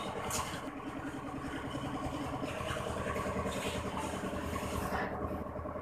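Oil sizzling as luchi deep-fry in a steel kadai, under a steady low mechanical hum that pulses evenly, like an idling engine.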